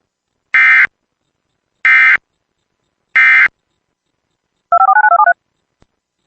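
Emergency Alert System end-of-message signal: three short bursts of digital data tones about 1.3 s apart, marking the end of the alert. About a second later comes a quick run of dual-tone beeps like touch-tone dialing.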